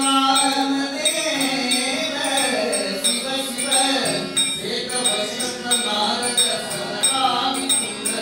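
A man singing a devotional bhajan, accompanied by harmonium, tabla and small hand cymbals clinking in a steady beat.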